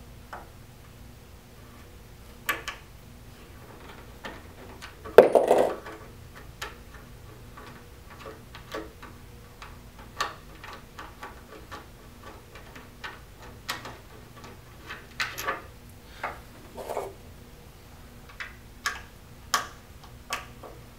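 An Allen wrench turning out the 1/4-20 bolts that hold the top on a ball polisher, making scattered small metal clicks and ticks, with a louder clatter a little after five seconds in.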